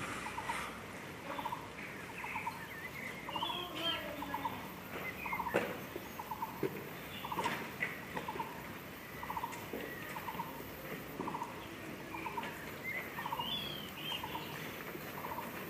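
Background animal calls: a short trilled call repeats steadily, a little under two a second, with a few higher chirping bird notes over it and occasional light clicks.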